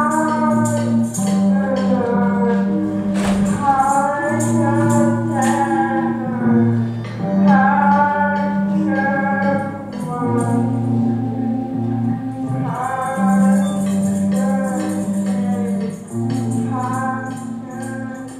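A band playing a song: a singer's melody over guitars, with steady low held notes that change every second or two and a regular high shaking percussion beat.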